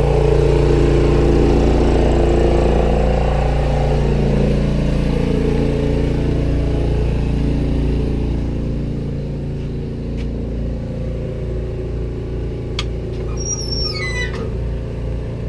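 Onan 4000 RV generator running steadily, carrying the load of the air conditioner, which was left switched on when it was started. Near the end a short high squeal falls in pitch.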